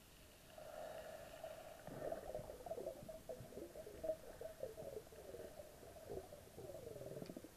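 Underwater bubbling: a continuous burbling with a wavering pitch that starts about half a second in and cuts off suddenly near the end.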